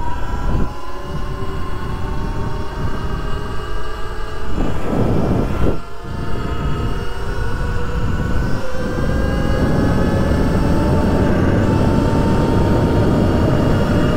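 Surron X electric dirt bike's motor whining while riding, its pitch climbing slowly as the bike picks up speed about eight seconds in and then holding steady. Wind rushes over the microphone throughout, with a stronger gust about five seconds in.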